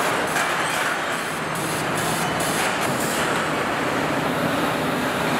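Steady machinery noise of a car assembly line with industrial robot arms at work. A hissing pulse repeats about three times a second and stops about three seconds in.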